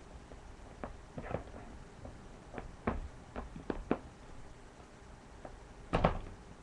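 Scattered light knocks, taps and clicks of small objects being handled by hand, as something is put right, with a sharper knock about six seconds in.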